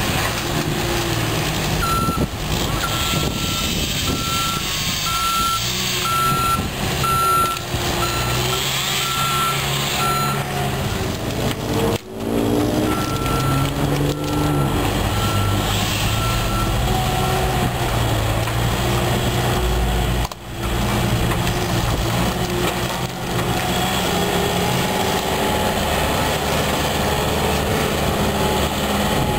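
Bobcat S330 skid-steer loader's diesel engine running under load. Its reversing alarm beeps at about one and a half beeps a second in two stretches during the first half.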